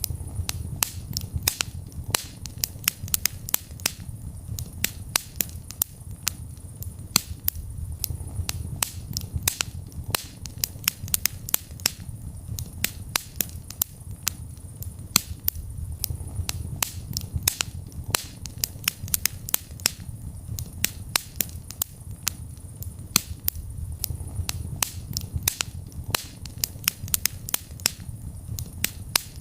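Wood fire burning in a fireplace: dense, irregular crackles and pops over a steady low rumble of the flames.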